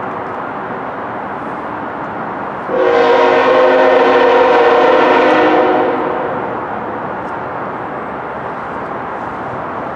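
Locomotive air horn sounding one long blast of about three seconds, several pitches together, starting a little under three seconds in, over steady background noise.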